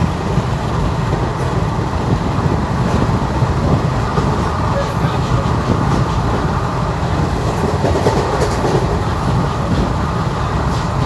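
Train running along the track with a steady rumble and occasional clacks of the wheels over rail joints.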